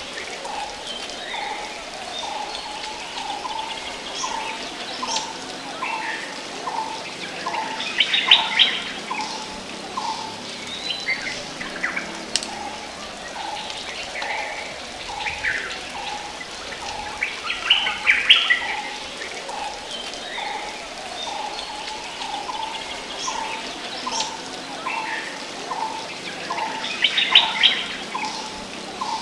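Birds singing: a short burst of chattering notes, the loudest sound, comes back about every nine seconds. Under it runs a steady series of short mid-pitched notes, about two a second, with scattered single chirps in between.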